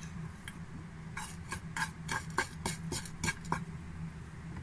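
A metal spoon tapping and scraping on a pan as red chili powder is spread over ground spices: about ten light taps, roughly four a second, over a low steady hum.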